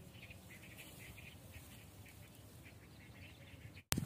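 Faint, rapid, irregular animal calls chattering on and off, with a sharp click near the end.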